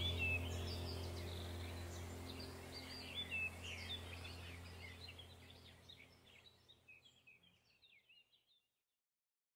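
Ambient background music: birdsong chirps over a low sustained drone, fading out to silence about six to seven seconds in.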